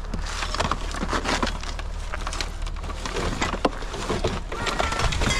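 Rummaging through a pile of curbside junk: irregular clattering, knocking and rustling of items being handled and moved, over a steady low hum.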